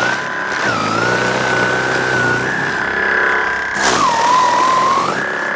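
Einhell GE-ST 36/40 Li E-Solo cordless brushless snow blower running through deep snow. Its high motor whine sags in pitch twice, most deeply about four seconds in, and recovers each time, as the machine labours under the load of heavy snow on a low battery.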